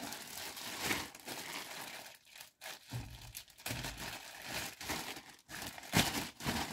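Clear plastic bag crinkling and rustling in irregular bursts as hands grip and pull it open, with a louder crackle about six seconds in.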